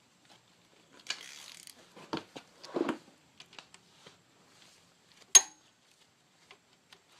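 Hand tools and engine parts being handled during timing-chain work: scattered clicks, a short rattling stretch about a second in, a few knocks around two to three seconds, and one sharp clack about five seconds in, the loudest sound.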